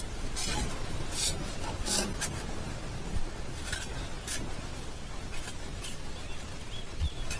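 A series of short scraping and rustling strokes, about seven in all, over a steady low rumble. Faint bird chirps come in near the end.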